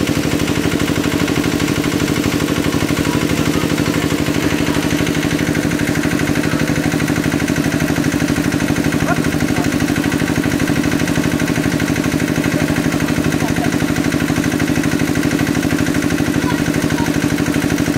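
A small engine running steadily at one constant speed, driving the pump that drains the water from the pond.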